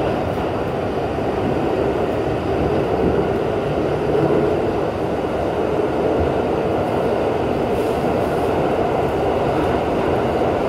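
New York City subway D train running steadily through the tunnel, heard from inside the car as a loud, even rolling noise of wheels on rails.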